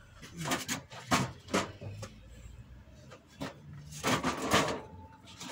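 Irregular knocks and scraping of objects being handled and moved, busiest near the end.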